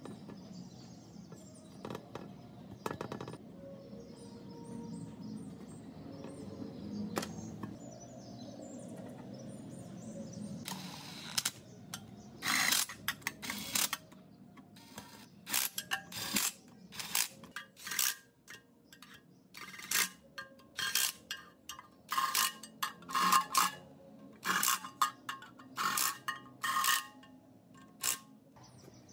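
Irregular clinks and taps of metal on metal, some ringing briefly, as tools and parts are handled. They start about eleven seconds in and come roughly once a second, after a quieter stretch of low background noise.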